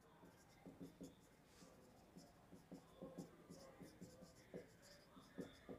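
Marker pen writing on a whiteboard: faint, short, irregular strokes as words are written out.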